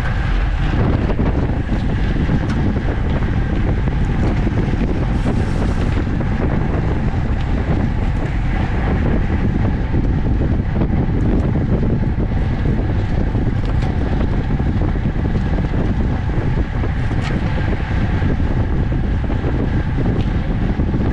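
Steady wind rush on a road bike's camera microphone while riding at about 24 mph.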